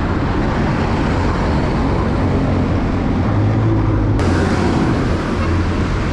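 Steady rumble of road traffic and wind on the microphone while riding a bicycle along a city road.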